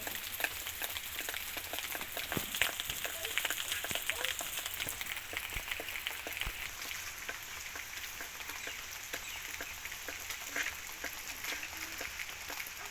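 Rain falling steadily: an even hiss packed with the ticks of countless drops striking.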